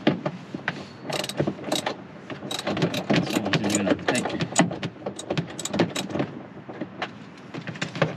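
Ratchet wrench clicking in quick irregular runs while working the mounting bolts of a bucket seat's side-mount bracket, with a few sharper metal knocks among the clicks.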